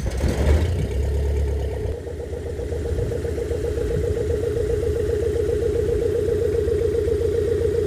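Homemade ultralight aircraft's motorcycle engine just after starting, spinning the front-mounted two-blade propeller. It is loudest in the first second, then settles into a steady idle about two seconds in.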